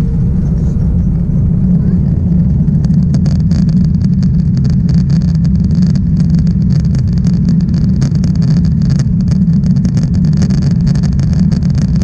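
Cabin noise of an Airbus A330-200 rolling on the ground after landing: a loud, steady low rumble, with fast rattling joining in about three seconds in.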